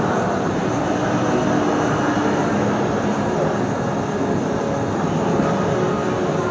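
Steady, dense din of a machine-tool trade-fair hall: machinery running, with no single event standing out.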